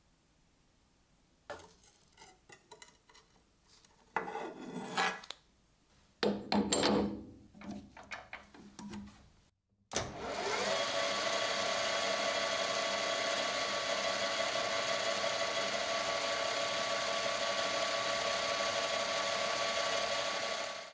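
Short scrubbing strokes of an abrasive pad or brush on a rusty steel blade, then, about ten seconds in, a metal lathe turning a solid brass bar with a carbide-insert tool: a loud, steady machining sound with several held tones as the cut runs.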